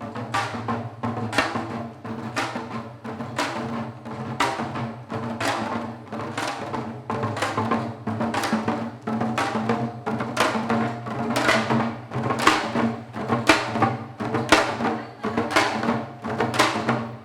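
Janggu, Korean hourglass drums, played in a seoljanggo drumming piece: sharp strikes in a steady rhythm of about two a second, over a steady low drone.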